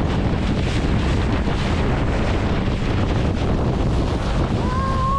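Wind buffeting the microphone on a fast-moving speedboat, over the rush of spray off the hull and the Suzuki outboard motor running. A steady tone comes in near the end.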